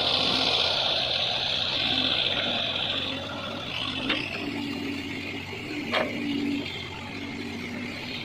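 Heavy machinery engine running, with a hissing whine strongest in the first three seconds and two sharp knocks, about four and about six seconds in.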